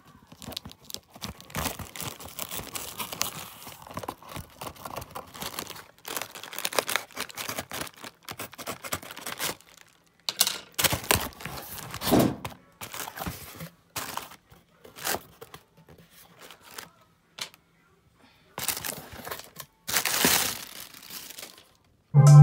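Plastic postal bag crinkling and tearing as a parcel is unwrapped, with the cardboard box inside being handled, in irregular bursts of rustling.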